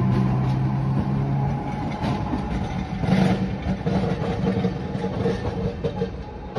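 A train running, with a steady engine or motor drone that shifts in pitch about a second and a half in, and rattling knocks over it. It grows quieter toward the end.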